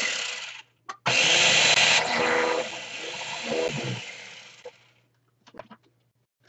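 Ninja food chopper's motor running under a pressed-down power head: a short pulse, then a run of about four seconds whose whine wavers in pitch and fades away as it winds down.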